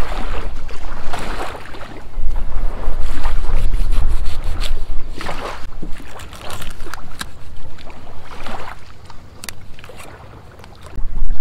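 A large knife scraping and cutting a freshly caught palometa on sand: a string of short, irregular rasping strokes. A heavy rumble of wind on the microphone runs underneath and is louder than the strokes at times.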